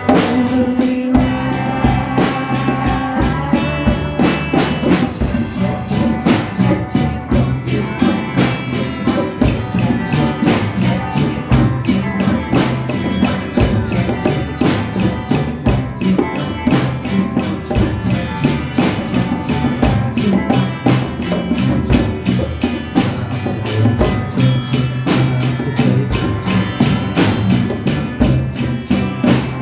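Live rock band playing a song in three-four time: electric bass and guitar over a drum kit and two tall hand drums beaten with the hands, keeping a steady, dense beat.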